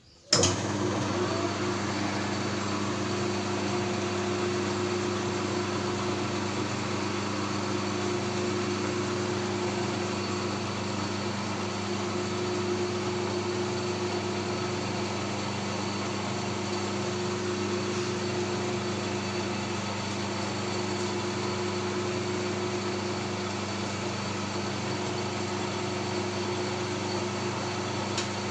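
Victor metal lathe starting up about half a second in and then running steadily, spinning a scooter cylinder block in its chuck, with a constant low motor-and-gear hum.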